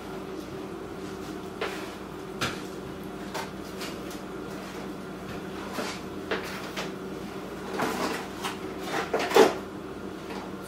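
Frozen-food boxes and bags being handled and set into the door shelves of an open top-mount freezer: scattered knocks, clunks and packaging rustles, busiest and loudest near the end, over a steady low hum.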